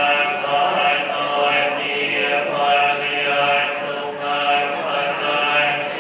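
Buddhist monks chanting together through a microphone in a steady, sustained recitation. The chant is in low male voices with long held tones.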